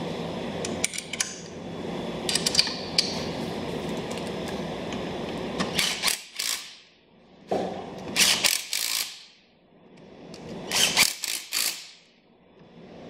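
Cordless drill/driver running in three short bursts of about a second each, driving 5 mm bolts into a power seat's frame. Before the bursts, a steady low background noise with a few small metallic clicks from the bolts being handled.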